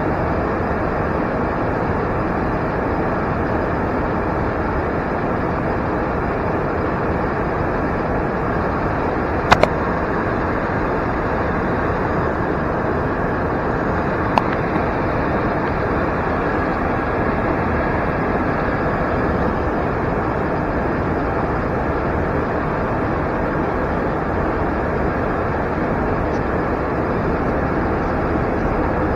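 Steady in-flight noise on the flight deck of an Embraer E175 airliner: an even rush with no change in pitch. A sharp click comes about nine and a half seconds in and a fainter one about five seconds later.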